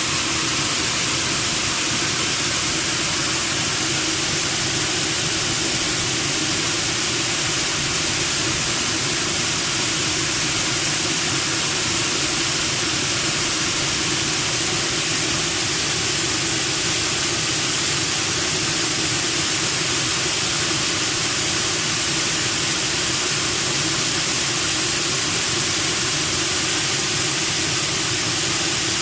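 Waterfall water rushing over rocks: a steady, unbroken hiss.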